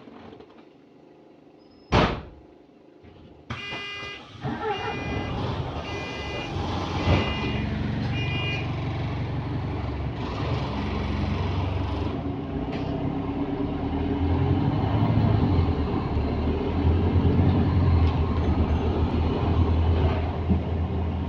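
Bus at a stop: a sharp bang about two seconds in, then a series of short high beeps of the door warning, then the diesel engine running and growing louder as the bus pulls away.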